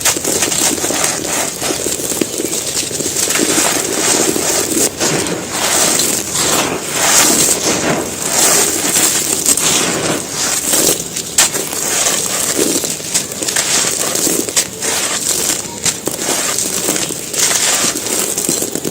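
Dry, gritty handmade cement pieces being crumbled and crushed: a dense, continuous run of crunches and crackles with frequent sharp snaps.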